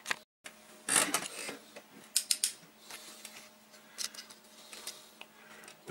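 Handling sounds of a wooden clock kit and a pair of pliers being picked up and worked: a rustle about a second in, then scattered sharp clicks and light taps.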